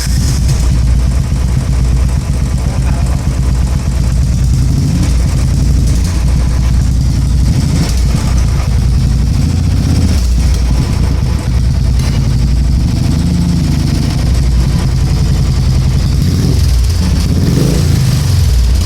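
Royal Enfield single-cylinder motorcycle engine running loudly through an aftermarket silencer, its engine speed rising and falling a few times.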